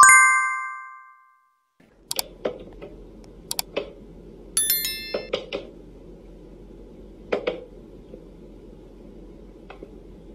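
A bright chime rings out and dies away over about a second and a half. Then a wooden whack-a-mole cat toy clicks and knocks as a cat bats at the pop-up mice, with a short high squeak about four and a half seconds in.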